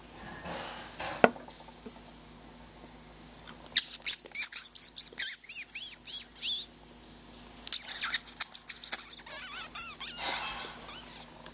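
Two quick runs of high, arching chirps, many notes in a row, the first starting about four seconds in and the second a second after it ends; a single sharp click comes about a second in.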